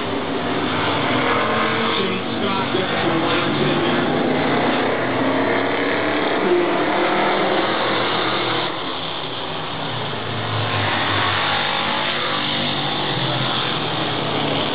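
A field of stock cars running together around a short oval track, the engines of the pack blending into one steady sound as they pass.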